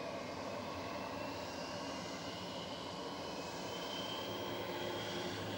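Boeing 727 freighter's Pratt & Whitney JT8D jet engines running, with a steady rumble and a whine that slowly rises in pitch as an engine spools up during start.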